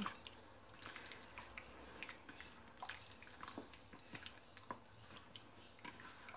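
A hand squishing lamb chops through a thick yogurt-and-spice marinade in a stainless steel bowl, working the spices into the meat. Faint, irregular wet squelches and small clicks.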